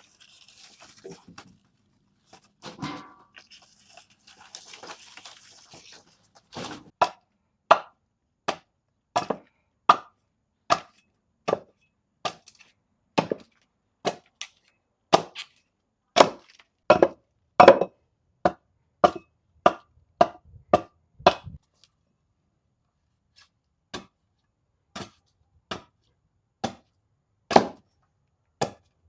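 Kitchen knife chopping on a cutting board in single, evenly spaced strokes, about one to two a second. The chopping starts after a few seconds of faint handling noise, stops briefly near two-thirds of the way through, then resumes.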